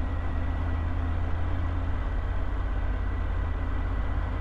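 Motorcycle engine running steadily as the bike rolls slowly in traffic, a deep even drone.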